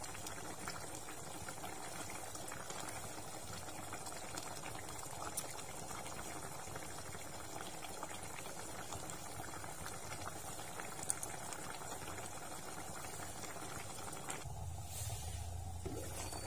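Pot of braised pork belly and quail eggs simmering: a steady bubbling of the thick cooking liquid with small pops. Near the end the sound turns duller.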